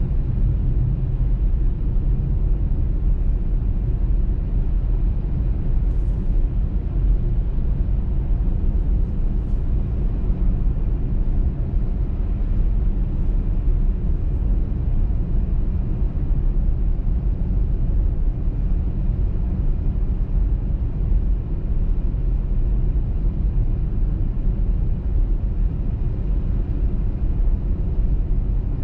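Steady low rumble of a car driving on a highway: road and tyre noise with the running engine, with a few faint light ticks now and then.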